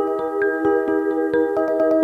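Background music of mallet percussion, marimba or glockenspiel-like notes struck in a quick, steady stream of ringing tones.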